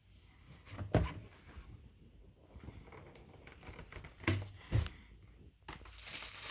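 Packaging being handled during an unboxing: a thump about a second in and two more close together later, then rustling of paper or wrapping near the end.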